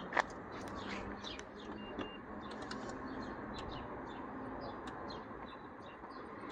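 Small birds chirping over and over in short, high notes above a steady outdoor background hiss, with a single sharp click about a quarter second in.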